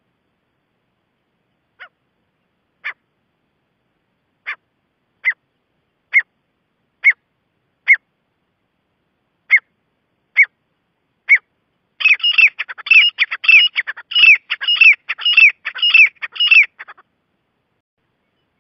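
Gray francolin calling: about ten single sharp notes, each falling in pitch, roughly one a second and growing louder. Then comes a fast, dense run of repeated calls for about five seconds that stops abruptly.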